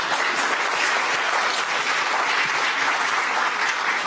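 Audience applauding steadily, a dense patter of many hands clapping in a lecture hall at the close of a talk.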